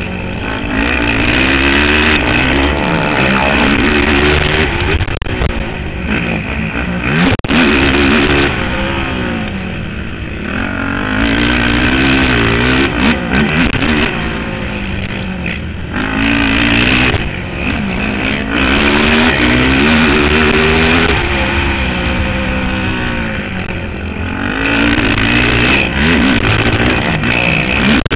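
Racing ATV engine at speed, revving up hard and falling off again and again as the quad accelerates and backs off through the turns, picked up by the rider's helmet camera.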